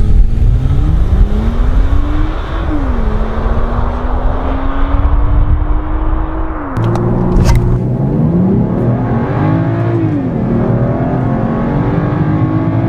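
BMW X1's turbocharged straight-six accelerating hard: the revs climb, drop at an upshift about two and a half seconds in, then climb slowly again. About halfway through the engine note changes abruptly and then rises and falls with the throttle, over steady wind and road noise.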